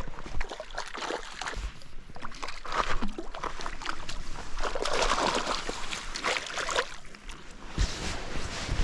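Water splashing and sloshing in irregular bursts as a hooked splake thrashes at the surface while being landed, busiest a little past the middle.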